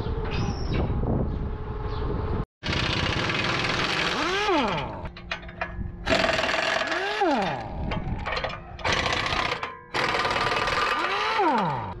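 A power tool repeatedly spinning up and winding down, three times about three seconds apart, each time a whine that rises and then falls in pitch, over loud, steady workshop machinery noise.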